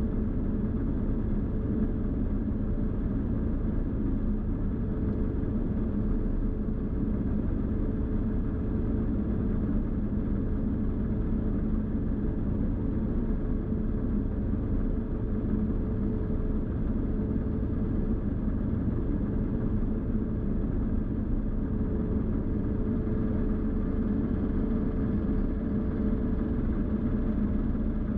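Diesel engine of a New Holland TX combine harvester running steadily at working speed during harvest, with a faint constant whine over the low engine noise.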